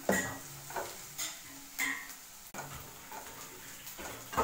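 A few sharp clinks and knocks of a metal pressure cooker and its handle and lid being handled as the boiled vegetables are taken out, over a faint sizzle of onions frying in a pan.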